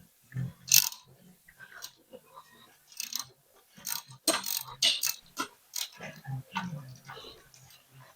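Irregular metallic clicks, clinks and knocks of tools and parts being handled during work on a John Deere tractor transmission, the loudest just under a second in and around four to five seconds in.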